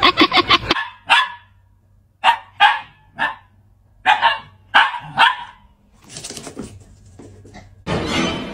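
A dog barking in single sharp barks, about seven in all, spaced half a second to a second apart. The barks follow a quick stutter of short sounds that stops within the first second.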